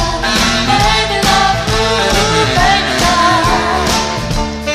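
Background music: a melody line over sustained accompaniment.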